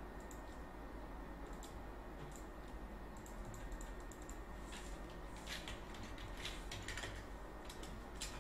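Computer keyboard keystrokes: scattered single taps, then a busier run of keystrokes past the middle, over a low steady hum.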